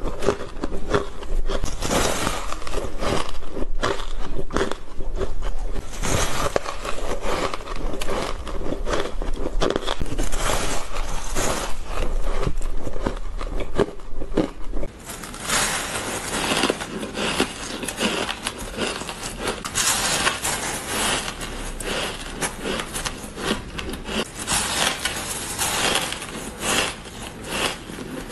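Close-up crunching, biting and chewing of soft, powdery frozen ice: a dense, continuous run of crisp crunches and scrapes. About halfway through, the crunching changes to a crisper, slightly quieter sound, as crushed ice is eaten.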